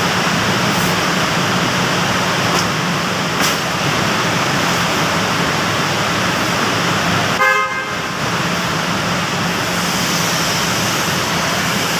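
Steady rushing vehicle noise with a low hum, broken about seven and a half seconds in by a short car horn toot.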